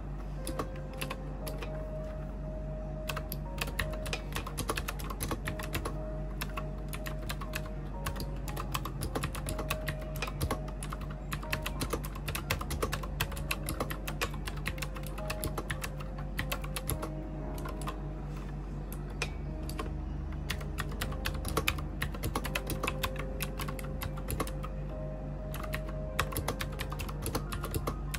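Typing on an Elysium Dot retro keyboard with round typewriter-style keycaps: a fast, steady stream of key clicks starting about a second in. Soft background music with held notes plays underneath.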